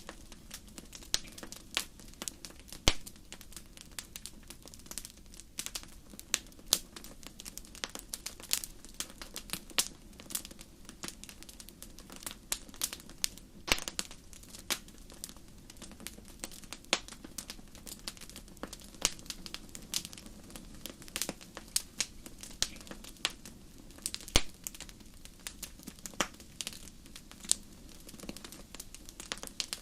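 Irregular sharp crackles and ticks, a few each second, some louder than others, over a low steady hum.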